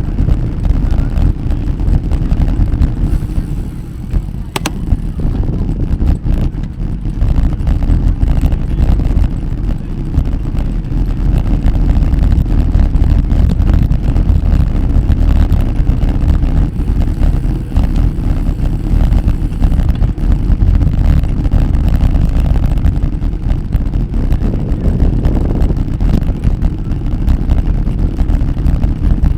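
Wind buffeting the microphone of a moving bicycle, a loud steady low rumble, with a single sharp click about four and a half seconds in.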